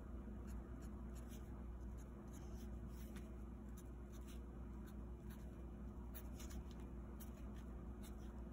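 Faint scratching of a felt-tip marker on paper, in many short strokes as lines are drawn over, with a steady low hum underneath.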